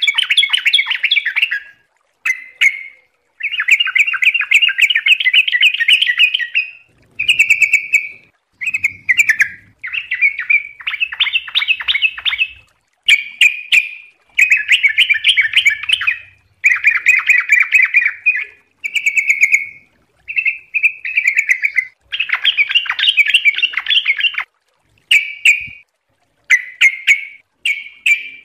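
Yellow-vented bulbul (trucukan) singing in the fast 'ropel' style: a string of chattering phrases of rapidly repeated notes, each half a second to three seconds long, with short pauses between.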